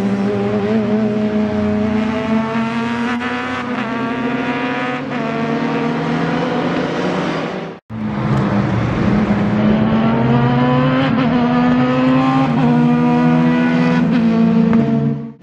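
The Fiat 126's Yamaha R1 inline-four motorcycle engine running at high revs as the car laps the circuit, its pitch climbing slowly in two long pulls. The sound breaks off for an instant near the middle, then comes back.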